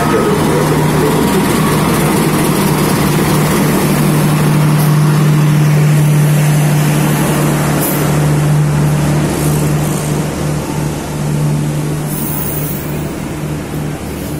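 CC206 diesel-electric locomotive's engine running with a steady low drone as it passes close along the platform, followed by its passenger coaches rolling by. The drone is loudest midway and eases near the end as the coaches go past.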